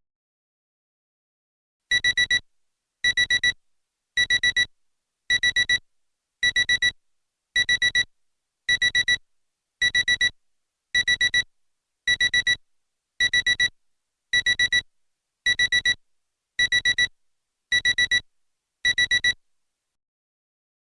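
SEIKO Disney Time FD464S alarm clock sounding its electronic beep alarm through its small low-power speaker: quick groups of four beeps on one high tone, repeating about once a second. The beeping starts about two seconds in and stops a little before the end.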